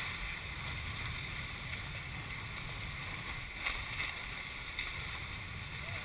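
Water rushing and splashing past the hulls of a Hobie 21SE catamaran sailing at speed through chop, with wind rumbling on the microphone. A couple of sharper splashes stand out a little past the middle.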